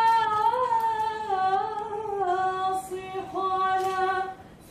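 A woman singing, holding long drawn-out notes that waver and slide in pitch, with a brief break just before the end.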